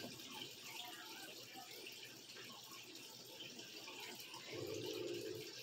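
Faint, steady trickle of water from a running aquarium filter. A low voice murmurs briefly near the end.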